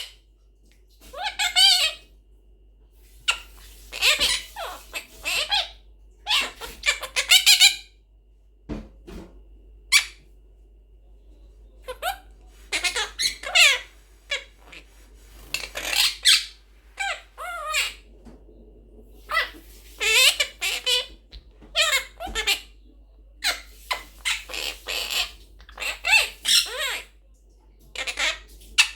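Monk parakeet (Quaker parrot) chattering in short, high-pitched, squeaky bursts that bend in pitch, with short pauses between them.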